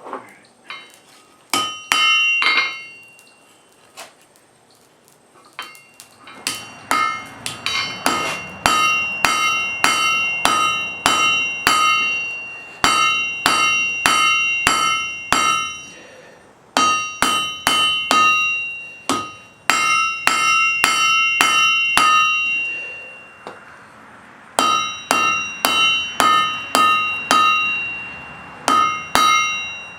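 Blacksmith's hand hammer striking hot wrought iron on an anvil, each blow ringing. A few blows at the start, a short lull, then steady runs of about two blows a second broken by brief pauses.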